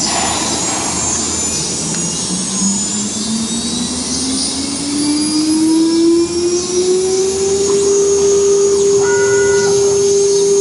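Multi-head CNC router spindle motors running with a high whine that rises steadily in pitch for about eight seconds and then holds steady, over a constant rushing noise.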